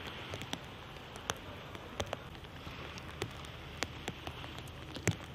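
Light rain: a steady patter with single drops ticking sharply and irregularly close to the microphone.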